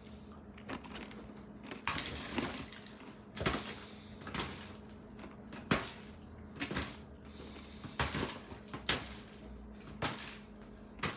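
Dehydrated quinoa pretzels dropped one at a time into a foil-lined kraft paper pouch, each landing as a short rustling tap, about one a second. A faint steady low hum runs underneath.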